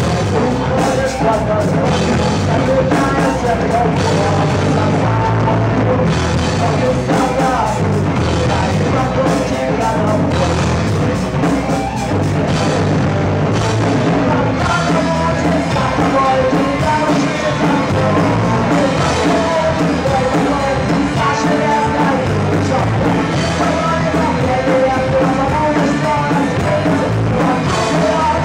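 A rock band playing live: distorted electric guitars, bass and drum kit, with a male vocalist singing over them.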